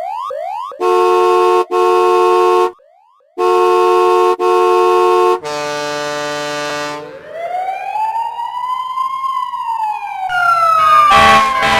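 A run of siren and horn sound effects. Fast repeated rising siren sweeps are followed by four loud steady vehicle-horn blasts in two pairs, then a longer lower horn tone. After that comes a siren slowly rising and falling in one long wail, and another siren tone falling near the end.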